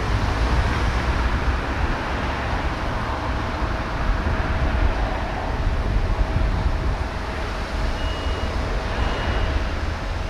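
Steady distant traffic noise, with a faint steady hum under it and two short high beeps near the end.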